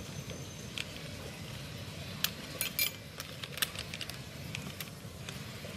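Light metallic clicks and clinks, a handful spread unevenly, as a diamond cutting disc is handled on an angle grinder's spindle to be turned around because it was mounted backwards. A low steady hum sits underneath.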